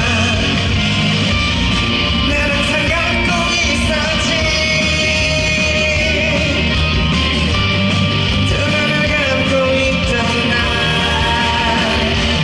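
Live performance of a song: a male vocalist singing with band accompaniment, holding long notes.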